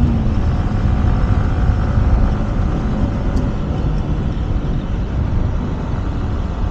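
Wind rushing over the microphone, with the motorcycle's engine and tyre noise beneath it, while riding at road speed.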